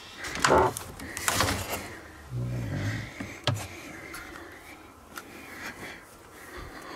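Handling of a wooden beehive and its lid: two scraping swishes of wood, a low creak about two and a half seconds in, then a sharp knock, followed by fainter rubbing and handling.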